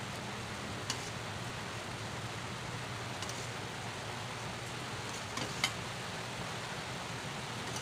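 Steady background hiss with a low hum, broken by a few light clicks; the sharpest click comes about five and a half seconds in.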